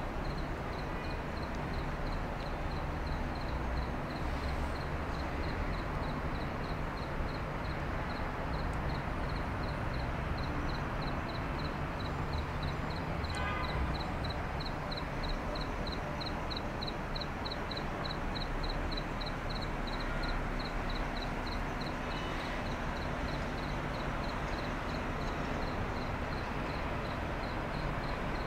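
A cricket chirping in a steady, high-pitched pulse, a few evenly spaced chirps a second, over a constant low outdoor rumble.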